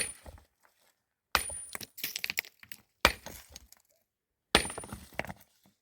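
Four sharp cracks about a second and a half apart, each followed by a brief crackling that dies away.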